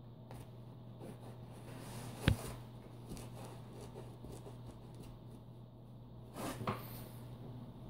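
A cat playing in a duvet and pillows on a bed: one soft thump about two seconds in and a brief scuffle of fabric near the end, over a steady low hum.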